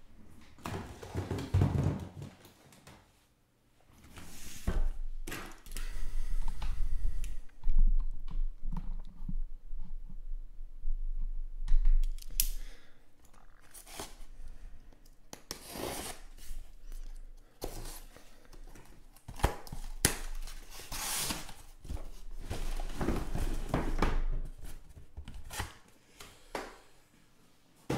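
A cardboard shipping case being opened: a utility knife slits the packing tape and cardboard flaps rustle. Shrink-wrapped boxes are lifted out and set down with irregular light knocks.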